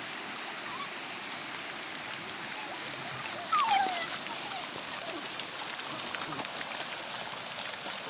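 Shallow stream running steadily over stones, with puppies splashing through the water. About halfway through, a puppy gives one short falling whine.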